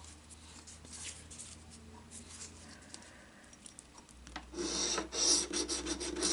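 Quiet handling of paper lottery tickets with small clicks and rustles, then about four and a half seconds in, rapid rasping as the latex coating of a scratch-off ticket is scratched off.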